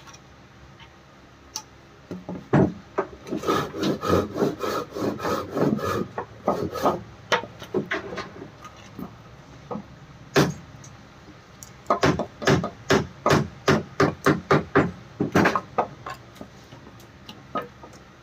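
Marker pen drawn across a bare wooden sofa armrest: short rubbing strokes, several a second, in two runs with a pause about ten seconds in.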